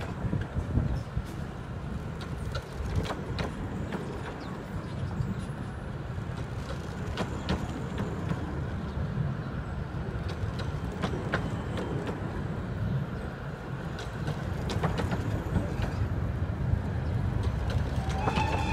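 A train of Romney, Hythe & Dymchurch Railway 15-inch-gauge coaches rolling past: a steady low rumble with scattered clicks and clanks of the wheels on the rails. A brief high tone sounds near the end.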